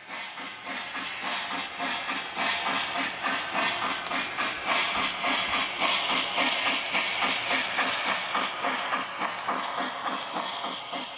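Steam locomotive chuffing at a steady pace of about four chuffs a second over a constant hiss. It fades in over the first couple of seconds and fades out near the end.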